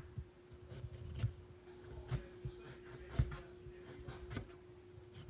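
Kitchen knife slicing a garlic clove on a cutting board: about six irregular knocks of the blade on the board, with a faint steady hum underneath.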